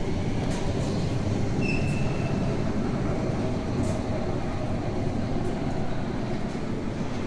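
Heavy vehicle engine running steadily with a low rumble. A brief high squeak comes about two seconds in, and a few light clicks are heard.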